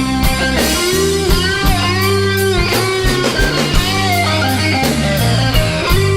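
Instrumental break of a song: a lead guitar plays bending notes over a bass line and a steady drum beat.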